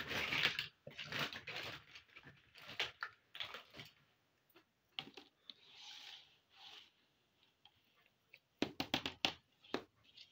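Small plastic toys being set down and moved about on a tabletop: light clicks, knocks and scrapes, with a quick run of sharp clicks near the end.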